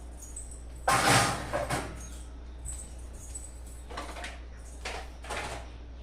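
Household handling noises: a loud clatter about a second in, then three softer knocks or rattles later on, over a steady low hum.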